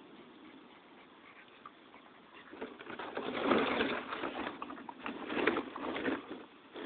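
A dog playing at a plastic paddling pool, lunging and nosing into it: irregular loud bursts of scuffling and splashing noise begin about two and a half seconds in and come and go.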